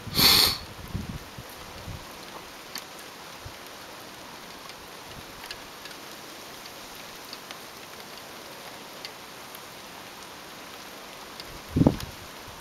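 Heavy rain falling steadily, with scattered drops ticking. A short, loud burst of hiss comes just after the start, and a brief low thump comes near the end.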